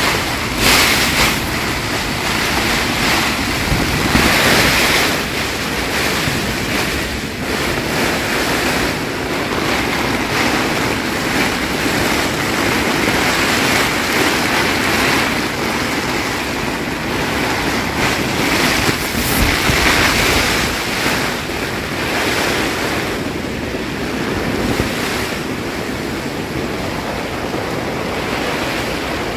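Storm-force wind gusting against an ODC Mark 5 dome tent, heard from inside: the tent fabric flaps and shakes under a loud, constant rush, with gusts swelling several times.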